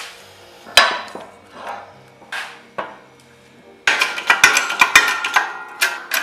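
Metal fingerboard mold and press clacking as the mold is set down on the press plate, with one sharp clack about a second in and two lighter knocks. Near the end comes a quick run of sharp metal clicks and knocks as the press is worked to squeeze the mold shut on the glued plies.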